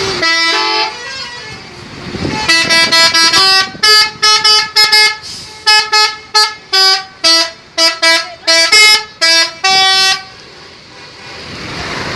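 Telolet multi-tone musical air horn on a PO Haryanto bus playing a quick tune of short toots that jump between a few pitches. It plays one brief note near the start, then a rapid run of blasts from about two seconds in until about ten seconds.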